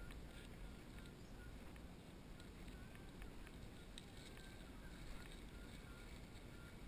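Faint, steady low rumble of wind and ride movement on the camera, with scattered light clicks and a few short high chirps.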